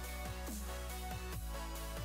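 Background electronic music: held chords over a steady low bass, with short notes that slide down in pitch several times a second.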